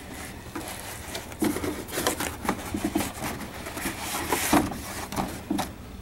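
Cardboard model-kit box being opened by hand: the lid scraping and sliding off in a series of irregular rubs, scuffs and soft knocks.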